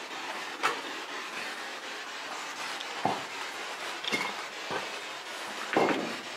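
Footsteps and scuffs on a gritty floor: a handful of irregular knocks over a steady hiss.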